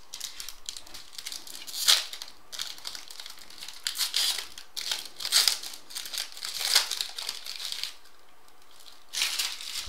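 A foil trading-card pack being torn open and crinkled by hand, in irregular crackling bursts with a short pause near the end.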